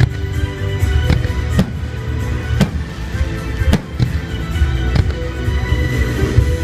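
Fireworks display shells bursting in sharp bangs, about one a second, over music with a deep bass and held notes.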